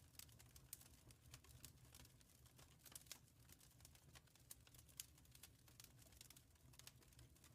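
Wood fire in a fireplace crackling faintly, with many small irregular pops and snaps over a low steady rumble.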